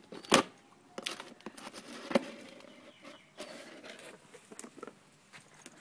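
A dog nosing and pawing at a clear plastic tub: plastic knocking and scraping on concrete, with scattered clicks and rustling. There is a sharp knock about a third of a second in and another about two seconds in.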